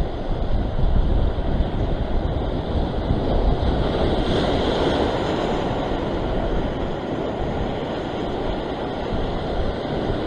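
Ocean surf washing and breaking over a rock ledge, with wind rumbling on the microphone. A wave surges more loudly about four seconds in.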